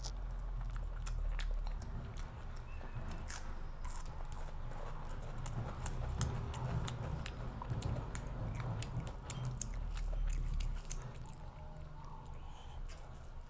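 A person chewing and biting food close to the microphone: a steady stream of small mouth clicks and smacks over a low rumble.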